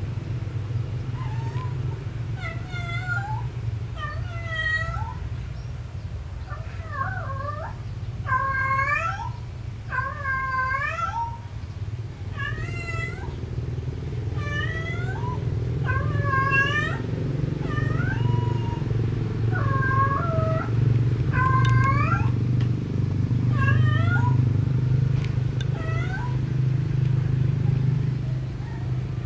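Domestic tabby cat meowing and yowling over and over, about fifteen drawn-out calls, each bending upward in pitch, a second or two apart: a cat calling for a mate. A steady low rumble runs underneath.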